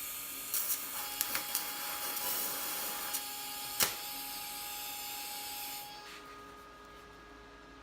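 TIG welding arc hissing steadily, with a few crackles in the first couple of seconds and a sharp snap near four seconds; it cuts off about six seconds in.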